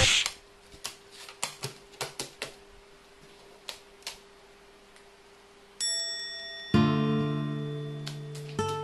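Carrion crow's beak clicking and snapping about ten times, irregularly, over the first four seconds as it takes food from fingers. Then a short chime and, from about seven seconds in, strummed acoustic guitar music, which is the loudest sound.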